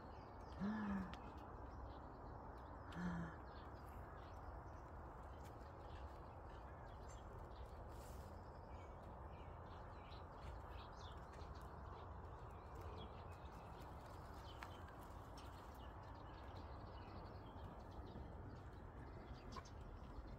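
Quiet outdoor garden ambience: a steady low background hum with faint, scattered bird chirps. Early on, two brief soft vocal sounds from a woman, falling in pitch.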